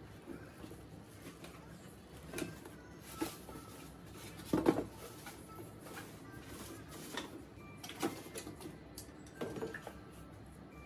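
Handling knocks and clatters as an electric tabletop grill with a metal pan and heating element is moved about in its cardboard box and set down on cardboard: about half a dozen separate knocks, the loudest a little before halfway.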